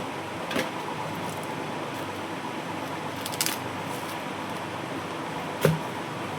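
Steady hum of a fan or air conditioner with a faint whine, broken by three short clicks of small objects being handled. The last click, near the end, is the loudest.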